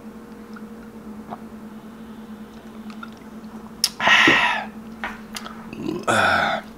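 Mouth sounds of a man drinking from a bottle during a meal: quiet at first, then two loud breathy exhales, about four and six seconds in. A steady low hum runs underneath.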